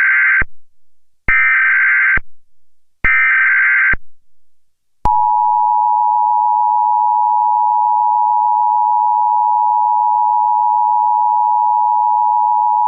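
Emergency Alert System SAME header data bursts: three short buzzy digital bursts of about a second each, the first already under way. About five seconds in, the steady two-tone EAS attention signal begins and holds.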